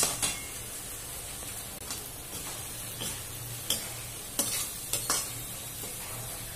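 Cabbage and capsicum in sauce sizzling in a wok while a flat perforated steel spatula stirs them, with sharp scrapes and taps of the spatula against the pan about once a second.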